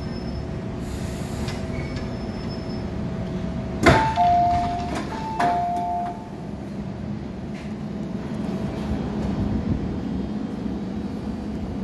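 MTR M-Train passenger doors opening at a station stop: a sharp clunk about four seconds in as the doors unlock and slide open, followed by a two-note chime sounded twice. A steady hum from the stationary train runs underneath.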